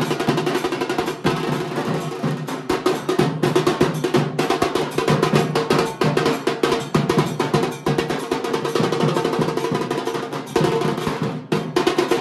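Music with fast, dense drumming: a continuous run of rapid drum strokes over a steady held tone.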